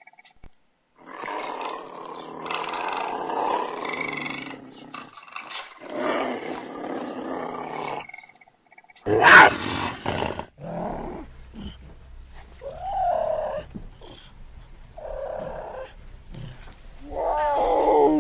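Puma (cougar) vocalizing: two long rough growls in the first half, then a loud sharp call falling in pitch about nine seconds in. Several shorter calls follow, each bending up and down in pitch.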